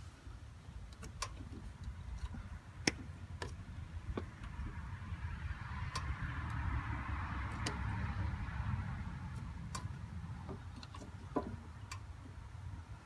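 Scattered light clicks and ticks of hand tools and a wire connector being handled at a tractor's air-conditioning compressor clutch wiring, over a steady low rumble. A hiss swells and fades over the middle few seconds.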